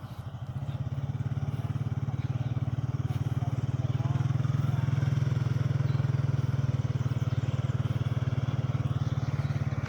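A motor vehicle's engine running steadily, getting louder about a second in and then holding even.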